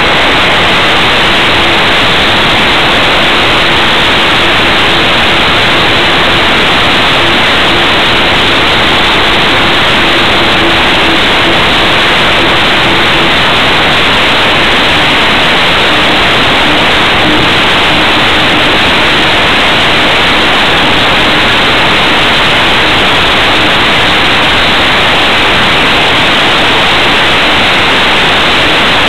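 Loud, steady rushing noise of wind and propeller wash on a camera mounted under a small propeller aircraft's wing during the takeoff run and climb, with a faint steady engine drone underneath that drops slightly in pitch about halfway through.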